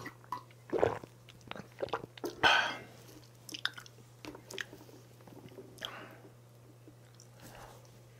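Close-miked eating sounds: a sip from a mug, then chewing and swallowing spoonfuls of chocolate layer cake, with scattered wet mouth clicks and smacks. One louder, longer rush of sound comes about two and a half seconds in.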